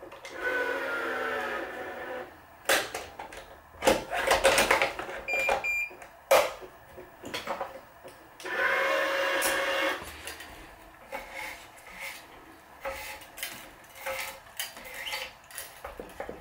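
Wise 2086 electronic tension head on a racquet stringing machine running its motor to pull a string to tension, twice, each pull lasting about a second and a half. In between come sharp clicks and knocks of string and clamps being handled, and a short beep about five seconds in.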